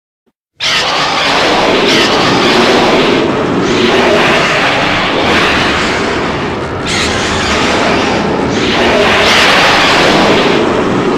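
Grand King Ghidorah film sound effect: a loud, continuous rumbling rush of noise that starts abruptly about half a second in and swells in a hissing surge roughly every one and a half to two seconds.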